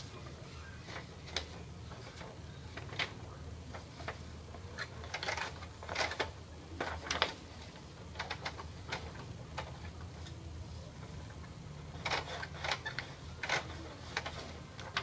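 A sheet of paper handled and pushed into the feed path of an opened Epson L210 inkjet printer: intermittent paper rustles and light plastic clicks, in clusters about halfway through and again near the end, over a steady low hum.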